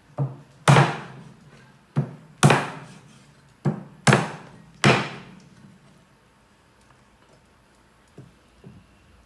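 Meat cleaver chopping raw chicken on a round wooden chopping board: about seven hard chops over the first five seconds, mostly in pairs of a lighter blow followed by a heavier one. The chopping then stops, leaving only a couple of faint knocks near the end.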